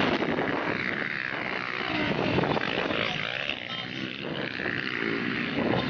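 Motocross dirt bike engines revving, their buzzing pitch rising and falling with the throttle.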